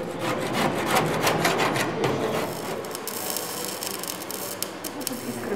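Metal-shop work: a quick, irregular run of scraping strokes, then from about three seconds in the steady sizzling crackle of electric arc welding on a steel trolleybus frame.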